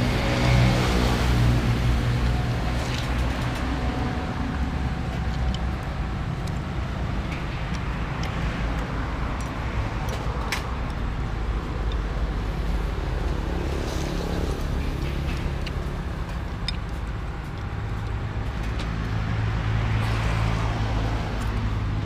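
Road traffic on the street beside the stall: vehicle engines hum past, swelling at the start and again near the end, with a steady low rumble between. A few light clicks stand out over it.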